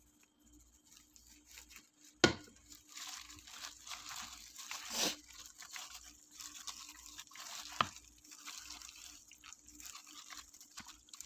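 Sauce-coated chicken pieces being mixed by hand in a bowl: wet squishing and the crinkle of a plastic food-prep glove. A sharp knock about two seconds in, and a smaller one near eight seconds.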